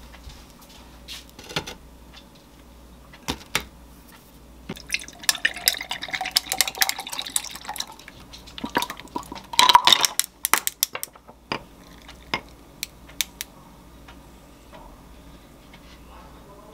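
Almond milk poured from a carton into a tall glass, with a splashing pour for about three seconds starting around five seconds in. It is followed by a burst of sharp glass-and-dish clinks and a few scattered taps.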